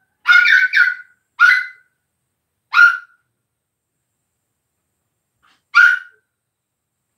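Kitten meowing: five short, high-pitched meows, the first two close together, then two more about a second apart and a last one after a pause of about three seconds.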